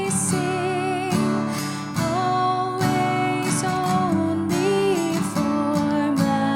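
Worship music with strummed acoustic guitar chords under a held, wavering melody line.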